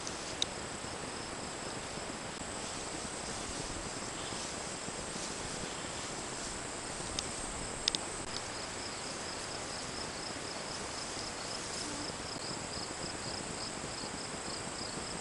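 Insects singing: a steady high-pitched buzz throughout, joined about eight seconds in by a rhythmic chirp repeating a few times a second. A few sharp clicks stand out, twice close together near the middle.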